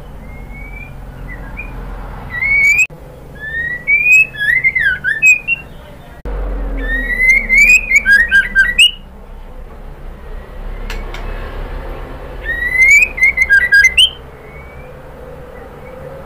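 Female white-rumped shama singing in four loud bursts: clear rising whistles that break into quick rapid-fire notes, with pauses between them. A steady low hum runs underneath.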